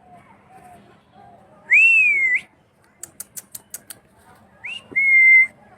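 Pet parrot whistling: a loud swooping whistle, then a quick run of about seven sharp clicks, then a short rising whistle followed by a held steady whistle.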